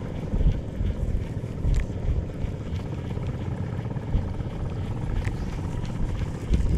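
Boat engine running steadily, with a low rumble and a few light clicks over it.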